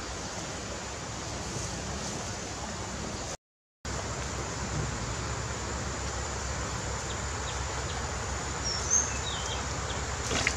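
Steady outdoor forest ambience, an even hiss, which cuts out briefly about three and a half seconds in. A short high chirp comes about nine seconds in, and a light clack of dry branches being set down comes near the end.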